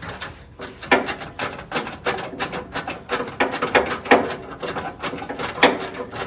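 Hand ratchet and metal tools clicking and knocking in uneven strokes, some with a brief metallic ring, as the Jeep XJ steering box's mounting bolts are worked loose.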